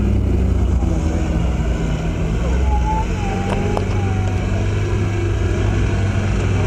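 Engine of a prototype 4x4 trial buggy running steadily at low revs as it crawls over rough dirt, with a few faint short whistle-like tones around the middle.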